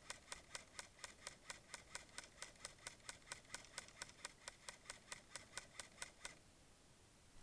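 A steady run of sharp, evenly spaced clicks, about four or five a second, that stops about six seconds in.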